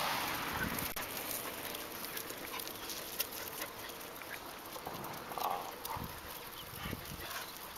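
Quiet sounds around a street dog walking on asphalt: soft scattered ticks and taps, with a brief soft sound about five and a half seconds in.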